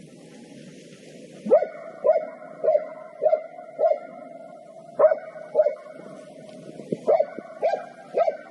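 Laika hunting dog barking in short runs of sharp barks, about two a second: five in a row, then two, then three near the end.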